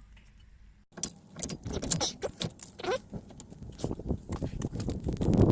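Small metal parts and tools clinking and rattling as they are handled during brake caliper work, a quick run of short clicks and clinks starting about a second in.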